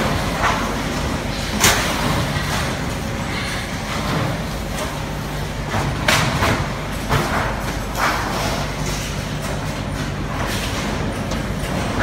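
A handful of sharp knocks and clanks from a steel filing cabinet being handled and fitted together: one about a second and a half in, and a cluster from about six to eight seconds in. Underneath is the steady hum of a factory.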